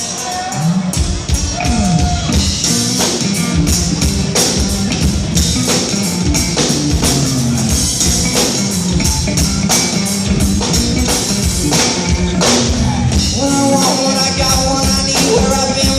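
Live band playing with drum kit and bass, loud and driving, heard as an audience recording in a concert hall; the drums and bass kick in about a second in, and a melodic line rises near the end.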